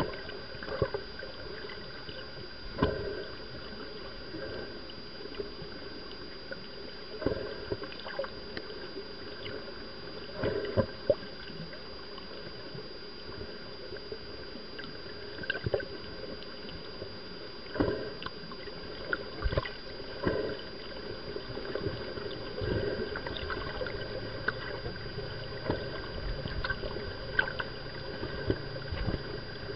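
Underwater ambience picked up by a camera in the water: a steady muffled wash with irregular knocks and gurgles scattered through it, and a faint constant high tone.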